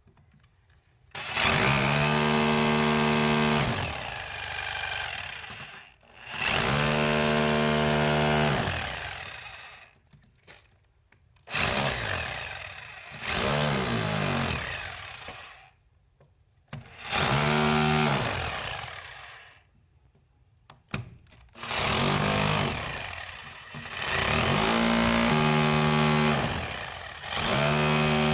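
Electric drill run in repeated bursts of two to three seconds, about six times, drilling holes. Each time the motor's pitch rises as it spins up and falls as it winds down.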